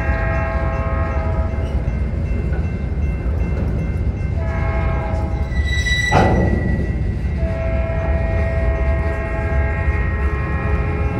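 Freight cars rolling past over a grade crossing with a steady low rumble of wheels on rail, while the lead locomotive's Nathan P3 three-chime air horn sounds in separate blasts: one ending about two seconds in, a short one near the middle, a long one after it and another starting near the end. A single sharp clank about six seconds in.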